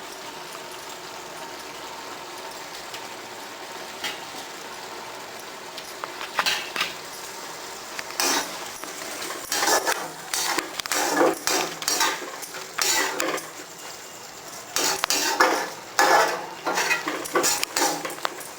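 Metal spoon clattering and scraping against a cooking pot while the gravy is stirred, in irregular strokes starting about six seconds in and growing busier after eight seconds.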